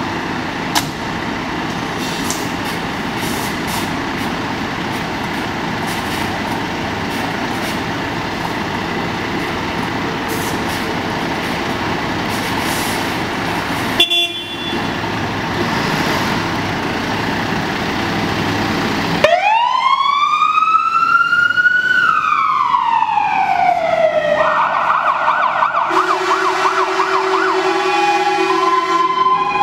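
Volvo FL280 fire engine setting off on an emergency run: its diesel engine runs with a steady rumble, with a brief tone about halfway. About two-thirds in, its siren comes on with one wail rising and falling, then switches to faster yelping and alternating two-tone notes.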